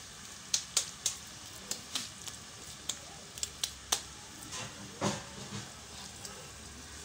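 Pot of water at a rolling boil: a steady hiss with frequent sharp, irregular pops of bursting bubbles. About five seconds in, a lump of raw cassava fufu dough is lowered into the boiling water with a soft splash.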